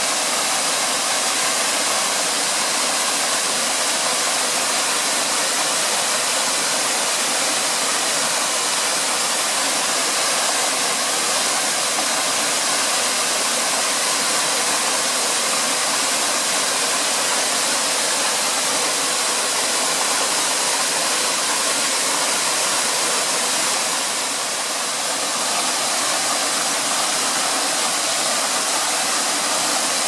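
Tall waterfall pouring down a steep rock face: a steady, loud rush of falling water.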